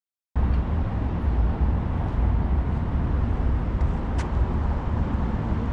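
Steady low rumbling background noise, like a running machine or distant traffic, that cuts in abruptly after a brief silence, with a single sharp click about four seconds in as the aluminium folding handle is worked by hand.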